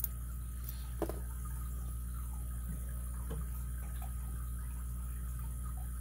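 Best padlock's shackle being pushed shut, a sharp click about a second in as it locks, with a smaller click just before. A steady low hum runs underneath.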